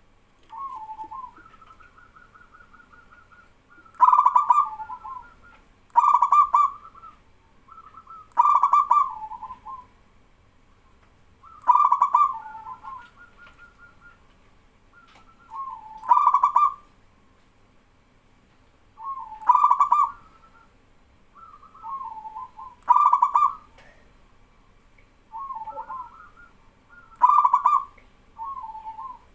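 Zebra doves (perkutut) cooing: a loud male repeats his coo phrase about every three to four seconds, with softer coo phrases from other doves answering in between.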